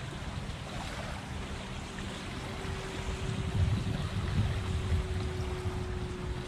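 Small waves lapping on a sandy shoreline, with wind rumbling on the microphone that grows louder from about three and a half seconds in. A faint steady hum sits underneath.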